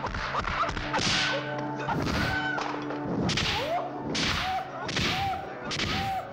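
A flurry of dubbed kung-fu film punch effects: about six sharp whipping smacks, roughly one a second. Each comes with a man's short, high-pitched yelping battle cry (kiai).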